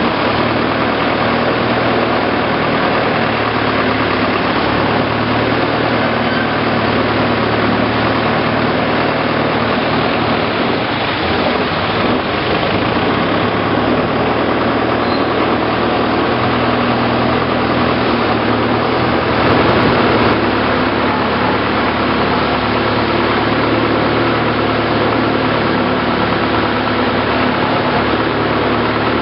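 Long-tail boat's engine running steadily underway, heard loud from on board, with water and wind noise mixed in; it swells briefly about two-thirds of the way through.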